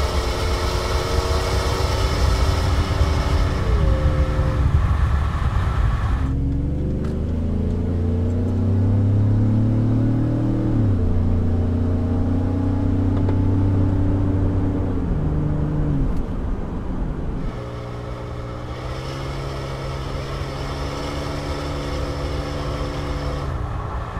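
Ford F-150's 2.7-litre twin-turbo EcoBoost V6 accelerating through a Gibson 3-inch single side-exit aluminized cat-back exhaust. The engine note climbs and drops back several times as the transmission shifts up. It is heard at the tailpipe, then muffled inside the cab for about ten seconds, then at the tailpipe again.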